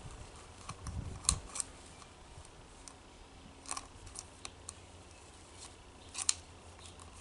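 Scattered sharp clicks and taps, a handful over several seconds with a couple of dull knocks near the start, from handling a string trimmer's plastic bump head and trimmer line.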